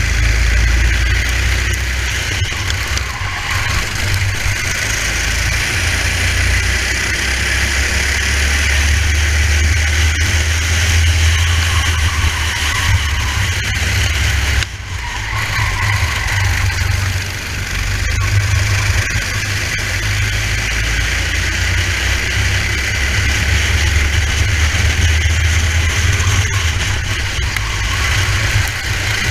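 Racing kart engine running hard lap after lap, heard from the driver's helmet camera with a heavy low rumble; the sound drops out briefly about halfway through, then carries on.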